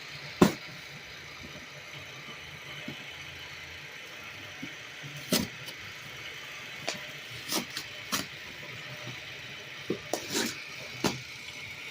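Handling and opening of a boxed food-ration package: a scattered series of sharp knocks and packaging sounds, the loudest about half a second in, over a steady low hum.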